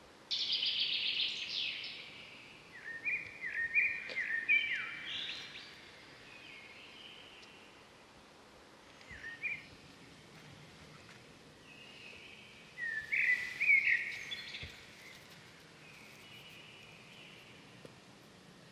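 Wild birds calling over a quiet outdoor background: a fast trill of high notes right at the start, then runs of short chirps a few seconds in, a brief call around the middle, and another run of chirps about two-thirds of the way through.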